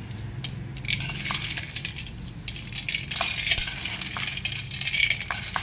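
Roasted peanuts rubbed by hand in a perforated steel sieve to strip their papery skins: a dry crackling rustle with many small clicks of nuts against the metal.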